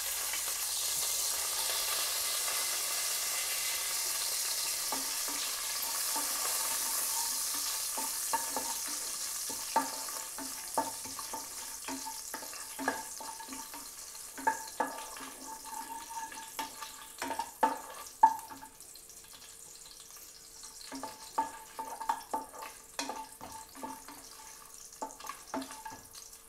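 Whole spices sizzling in hot ghee and oil in an aluminium pressure-cooker pan as they are tempered, stirred with a wooden spatula. The sizzle is strongest for the first several seconds and then dies down. From about a third of the way in, the spatula knocks and scrapes against the pot more and more, with a few sharp knocks about two-thirds of the way through.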